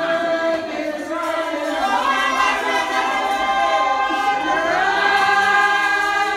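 A church congregation singing together, many voices holding long notes that slide from one pitch to the next.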